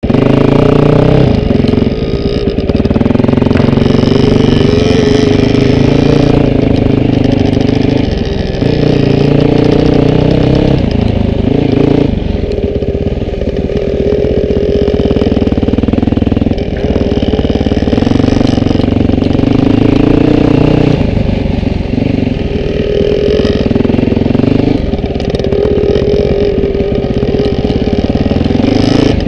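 Dirt bike engine running under changing throttle, revving up and easing off every few seconds while riding a trail.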